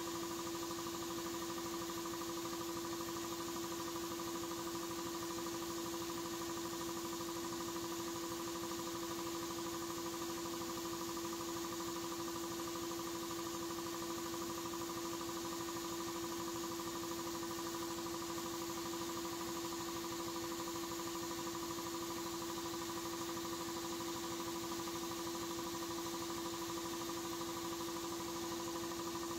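Sandblast cabinet blasting: a steady hiss of air and abrasive from the ceramic-tipped nozzle as it strips paint and rust off a pressed-steel toy truck part, over a constant hum.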